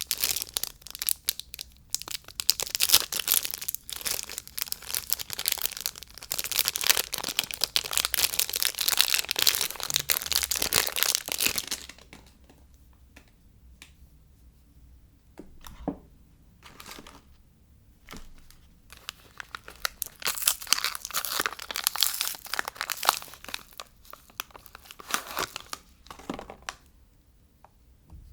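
Soap packaging being torn open and crinkled by hand: dense crinkling and tearing for about twelve seconds, a few light clicks, then another spell of crinkling from about twenty seconds in.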